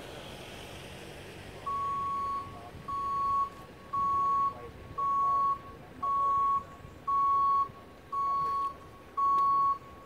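An electronic beeper sounding one even tone over and over, each beep about half a second long and about once a second, starting about two seconds in.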